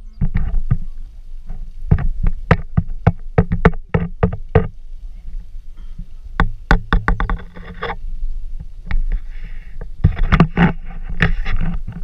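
Wind rumbling on an action camera's microphone, with many irregular knocks and scrapes as the selfie stick and hand move over the rock.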